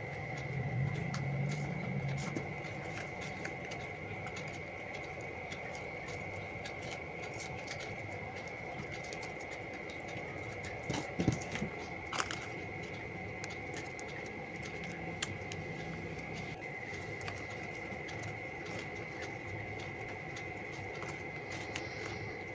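Foil-backed paper crinkling and crackling in the hands as it is folded and creased, in many light clicks, with a few sharper crackles about halfway through. A steady, thin, high-pitched whine sits underneath.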